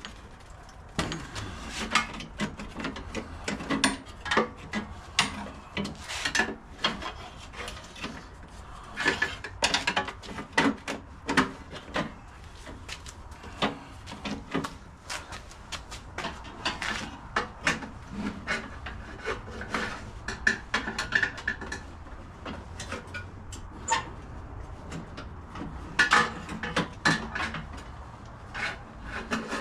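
Hand tools working on a snowblower's metal housing and parts: irregular clinks, knocks and scraping, with many sharp taps.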